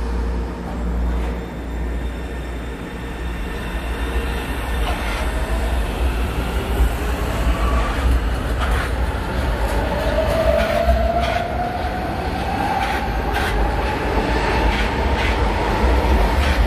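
São Paulo Metro Line 3-Red electric train running past close by and pulling away, with a low rumble. Its traction motors whine, rising steadily in pitch as it gathers speed over the second half. The wheels click over the rail joints.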